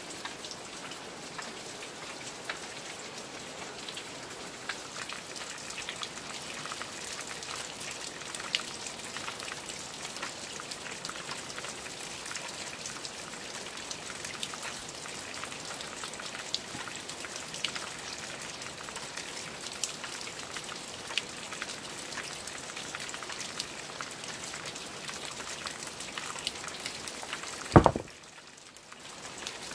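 Steady rain falling, with many separate drops ticking throughout. Near the end comes one heavy low thud, after which the rain sound briefly drops away.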